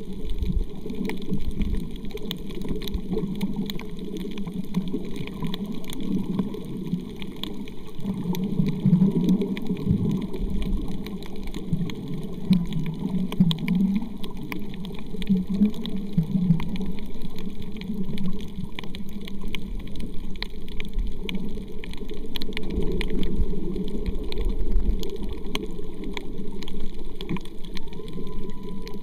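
Underwater ambience over a coral reef: a steady rushing, swelling water noise heard through the submerged camera, with a dense crackle of faint clicks above it.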